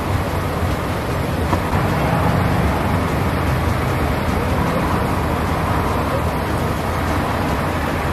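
Steady rumble of motor-vehicle traffic.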